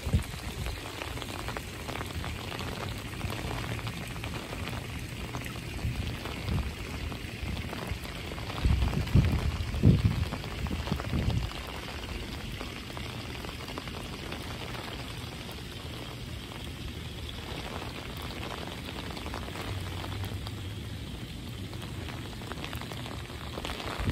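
Steady rain falling on wet brick paving and foliage, an even hiss. A few low rumbles of wind on the microphone come about nine to eleven seconds in.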